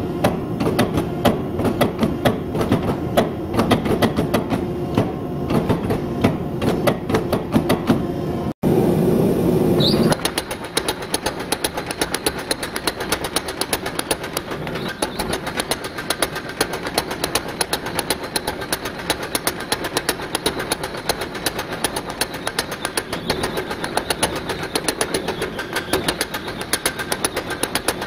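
A power hammer striking a glowing Damascus steel billet with rapid, evenly spaced blows, forging the pattern-welded steel. Earlier it is a gas forge's roar with irregular knocks, which gives way about ten seconds in to the steady run of hammer blows.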